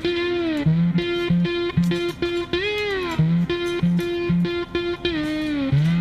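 Background music: an electric guitar playing a rhythmic riff of short repeated notes, with notes that slide down in pitch every couple of seconds.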